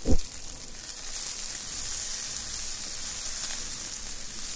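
A steady high hissing sizzle from a pot of hot vegetable cooking water on an induction cooker, while boiled vegetables are scooped out with a metal slotted spoon. There is a short low thud right at the start.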